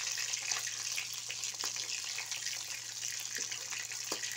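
Rohu fish steaks sizzling in hot mustard oil in a kadhai: a steady frying hiss, with a few light clicks as a metal spatula turns the pieces.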